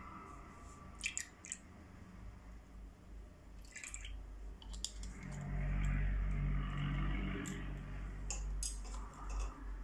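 A small bottle of red colouring being handled and squeezed over slime in a glass bowl: scattered sharp clicks and taps, with a louder, low, muffled squirting and handling noise from about five to nine seconds in.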